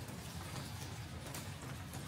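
Footsteps on hard wet paving, about two steps a second, over a steady low hum.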